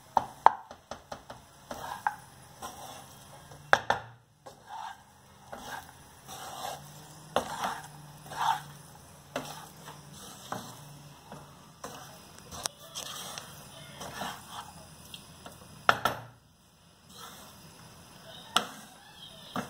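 Wooden spatula scraping and knocking against a non-stick kadai as cooked rice is stirred and mixed, in irregular strokes with a few sharper taps on the pan.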